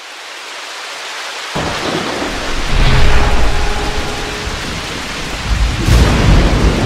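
Rain and thunder sound effect: a steady hiss of rain swells, a low rumble of thunder comes in about one and a half seconds in and builds, and a sharp thunderclap breaks near the end.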